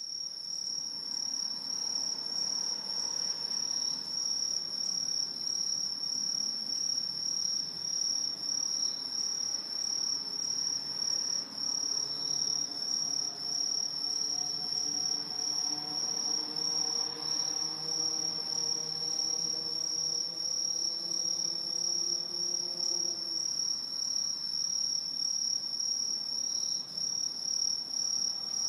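A large chorus of Aomatsumushi tree crickets (Truljalia hibinonis) singing: a continuous, high-pitched shrill trill from many insects, steady and unbroken.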